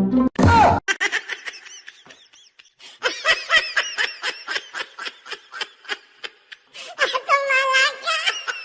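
High-pitched laughter: a quick run of short bursts, about five a second, followed near the end by a longer wavering laughing cry.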